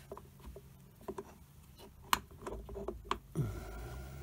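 Scattered light metallic clicks and knocks of steel lathe-apron parts, a shaft-and-cam assembly and gears, being handled and fitted into a cast-iron apron housing, the sharpest click about two seconds in.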